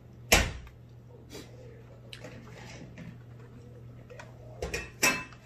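Close-up eating sounds as a boiled baby potato is bitten and chewed: a loud sharp click shortly after the start and another near the end, with softer clicks between.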